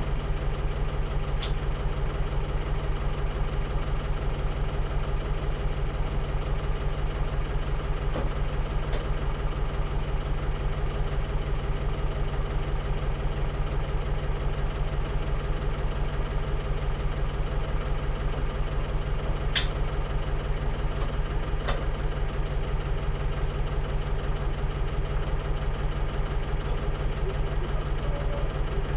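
Farm machine's engine idling steadily with an even low pulse. A few short, sharp clicks sound over it, the clearest about twenty seconds in.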